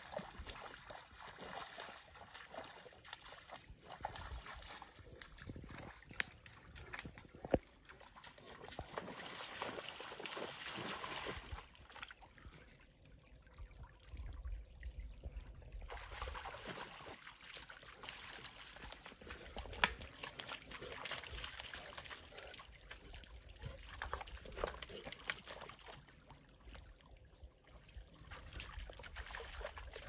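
Saint Bernard wading in a shallow rocky stream: water sloshing and splashing around its legs over the stream's trickle, with a few sharp clicks.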